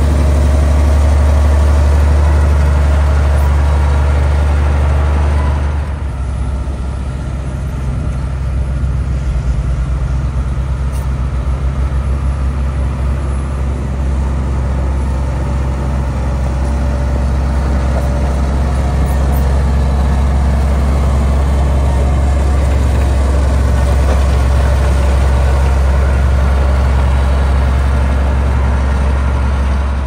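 Komatsu motor grader's diesel engine running steadily as the machine spreads gravel, a deep, loud drone. The sound shifts, slightly quieter, about six seconds in.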